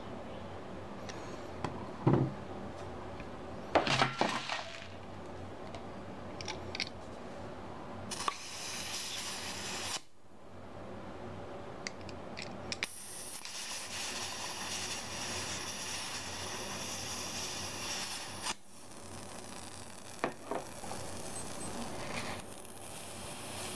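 Metal tool clinking against the brass fill valve of an airsoft M203 gas grenade shell, then gas hissing from a gas can pressed onto the valve as the shell is charged: a short hiss, then a longer one of about five seconds. It is followed by a fainter hiss with a few clicks.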